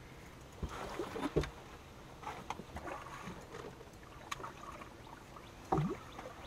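Splashing of a hooked fish thrashing at the surface beside the boat as it is reeled in. Two of the splashes stand out, about a second in and again near the end, over a steady wash of water against the hull.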